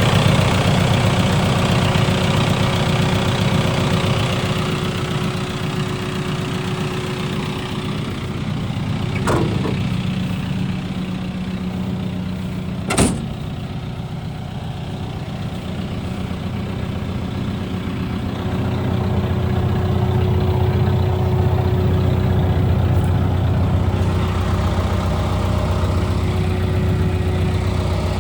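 Diesel engine of a Hitachi ZX170W-5B wheeled excavator running steadily. It eases off in the middle and picks up again about two-thirds through, with one sharp knock about halfway.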